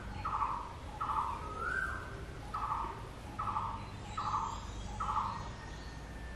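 Yellow Labrador retriever whining while held on a sit-stay before its food: about seven short, high whines, roughly one a second, that stop near the end.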